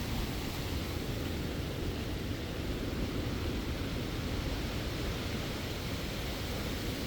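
Strong wind and heavy rain, a steady rushing noise, with the wind buffeting the microphone as a constant low rumble.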